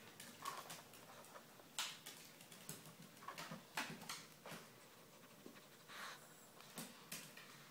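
Faint, irregular taps and scuffs of a small dog moving about on a tiled floor.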